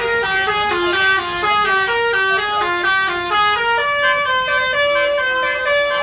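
Bus telolet basuri horn playing a fast melody: a quick run of short, stepped notes, each held a fraction of a second.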